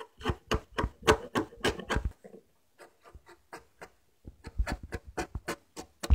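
Framing chisel paring a chamfer on the end edges of a sawn timber girt: a quick run of short scraping cuts, about five a second, then a few scattered cuts and a second run near the end.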